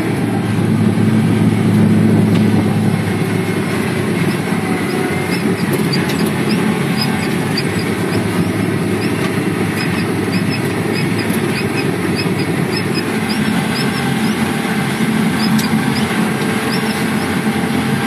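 John Deere 3520 sugar cane harvester running steadily under load, a constant low engine hum with machinery noise, heard from inside the cab.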